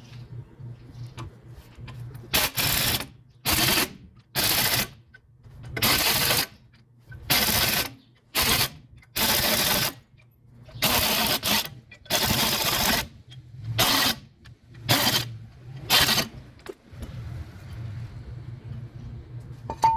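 A power tool run in about a dozen short bursts, each under a second or so, over a steady low hum.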